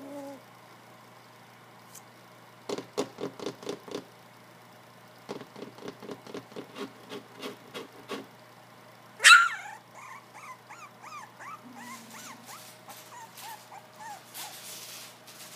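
Three-week-old English Springer Spaniel puppies playing: two bursts of rapid, low pulsing puppy growls, then one sharp high bark about nine seconds in, followed by a long run of short, high-pitched whimpers.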